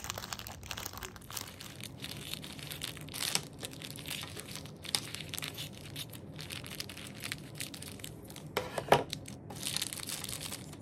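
A thin clear plastic packaging bag crinkling and crackling as it is handled and cut open with scissors. The crackles come thick and uneven, and the loudest, sharpest one comes a little before the end.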